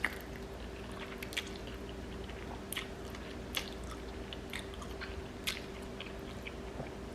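A person chewing and biting food up close to the microphone, with irregular wet mouth clicks and smacks. A steady low hum runs underneath.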